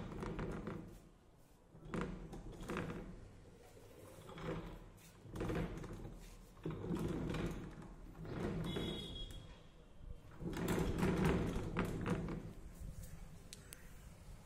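A small laminated wooden cabinet being turned and shifted across a floor by hand: several separate bursts of scraping and knocking, each about a second long, with a brief high squeak near the middle.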